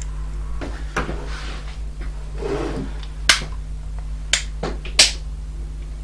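Sharp clicks, three of them about a second apart in the second half, with soft rustling in between, as gold bullet connectors and their heat-shrink-sleeved motor wires are handled. A steady low hum runs underneath.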